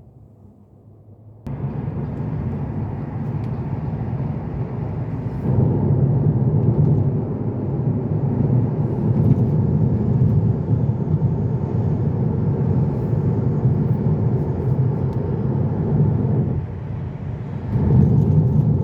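Road and tyre noise heard inside the cabin of a Tesla Model 3 electric car driving over a rough road. There is no engine sound and no clear rattle. The noise comes in suddenly after a quiet first second and a half, grows louder about five seconds in, and dips briefly near the end.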